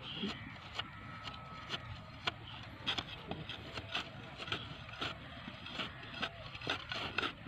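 Flat metal hand blades scraping and slicing through turf sod: short, irregular cutting strokes, several a second, getting busier after about three seconds, over a low steady rumble.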